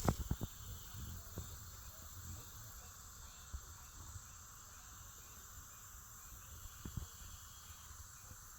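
Faint, steady high-pitched chorus of insects outdoors, with a few low bumps on the microphone near the start and again about seven seconds in.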